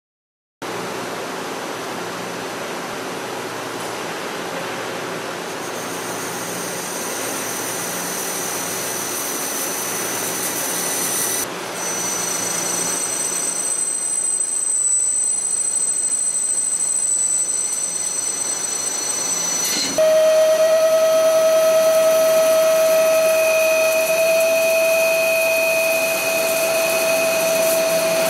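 Hwacheon Hi-TECH 230BXL CNC lathe cutting carbon steel in three passes. First comes a steady, noisy cutting sound. About eleven seconds in, a grooving cut starts with a thin, high, steady whistle over the noise. About twenty seconds in, a 55 mm U-drill bores into the spinning workpiece with a louder, steady pitched whine.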